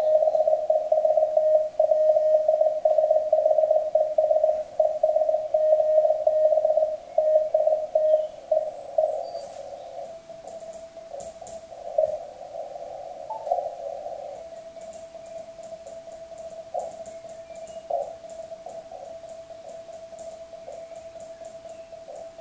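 Morse code sidetone, a tone near 600 Hz keyed on and off on a PS213 straight key, sending a QRZ call on the 40 m band. About ten seconds in the keying stops and the sound drops to quieter receiver audio: band hiss with a thin tone and occasional short blips.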